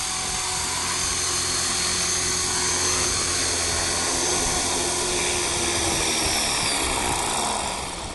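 Electric RC helicopter (Align T-Rex 450 SE with a Scorpion motor and Edge rotor blades): a steady high motor-and-rotor whine. Near the end the whine falls in pitch and fades as the machine winds down after landing.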